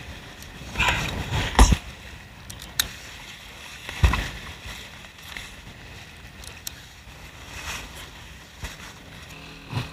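Water washing along a small sailboat's hull and wind on the microphone, with several short knocks and rustles of sail cloth as the genoa is handled on the foredeck.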